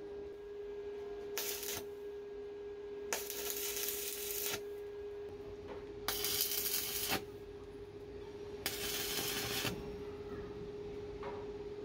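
Electric arc welding on steel bar: four short bursts of crackling arc, each a second or so long, as tack welds are laid on the joint.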